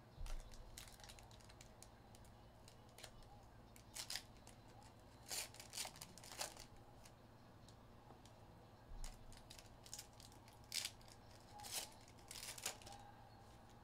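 Faint handling of a trading-card box and its packs being opened: a dozen or so brief, irregular tearing, crinkling and scraping sounds.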